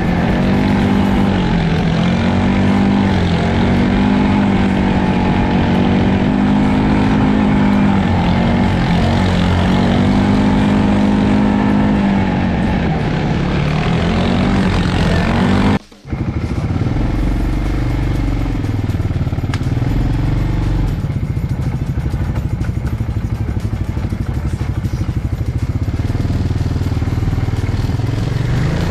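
ATV engine heard from on board, revving up and down again and again as it rides. About halfway through there is a brief break, after which the engine runs lower and a little quieter.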